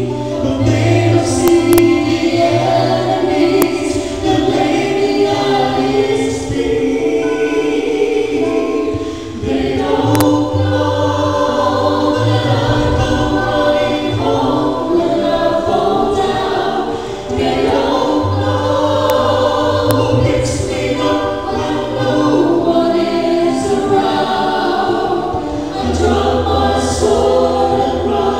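A small mixed group of male and female singers singing a sung prayer in harmony, with held low notes beneath, amplified through handheld microphones.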